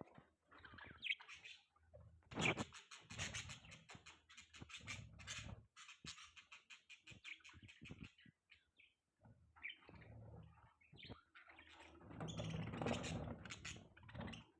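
Budgerigars chirping and chattering in irregular bursts with short pauses, busiest about two seconds in and again near the end.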